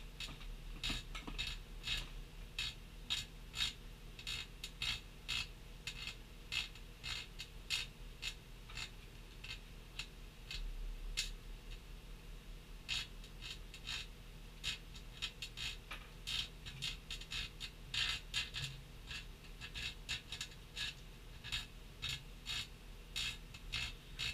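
Microwave oven running with a steady low hum, with irregular sharp crackling clicks, several a second, from the pewter heating inside.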